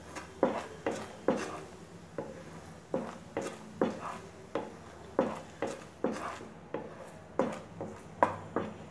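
A spatula scraping and knocking against a white-coated frying pan as it stirs boiling jaggery syrup. There are about two strokes a second, which come unevenly. The syrup is being cooked down toward a thick, rollable consistency.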